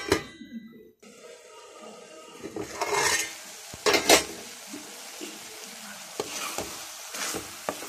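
Chopped carrot, beans and cabbage sizzling gently in an aluminium kadai, with two short metal-on-pan sounds from a utensil about three and four seconds in.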